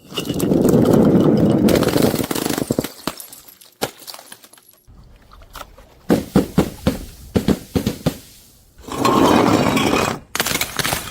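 Glass breaking: a long, dense smash at the start and another a little after the middle, with a run of sharp clinks and clatters of pieces between them and again near the end.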